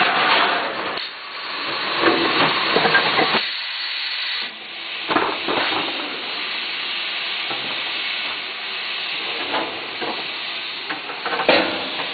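Water jets hissing and spraying inside a 5-gallon bottle washing and filling machine, dropping out briefly twice, with light clatter and a sharp knock near the end.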